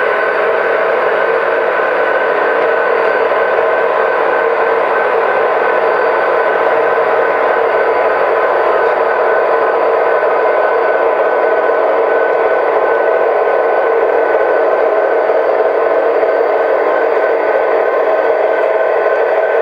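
Diesel engine sound from sound-equipped model locomotives, SoundTraxx Tsunami decoders playing through their small onboard speakers: a steady, tinny engine drone with no deep bass as the units run.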